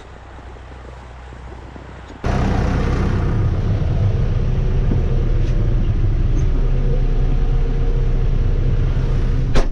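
A vehicle engine running quietly with a steady low hum, then about two seconds in a sudden jump to much louder steady engine and road noise of the vehicle under way, with a sharp click near the end.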